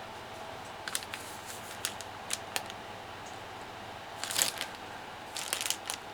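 Light handling sounds: scattered small clicks and brief rustles as the plastic model kit's instruction sheet and parts are handled, with a louder rustle about four seconds in and another cluster a little after five seconds.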